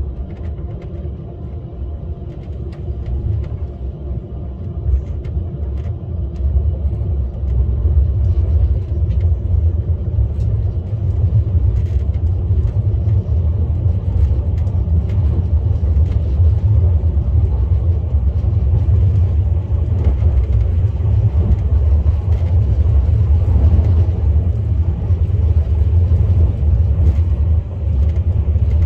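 KTX high-speed train running: a steady low rumble that grows louder over the first eight seconds or so, then holds, with occasional faint clicks.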